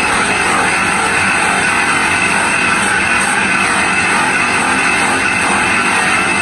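Electric bench buffer motor running at a steady speed, its cloth buffing wheel pressed against a plastic car headlight lens to polish it. The sound is loud and even throughout.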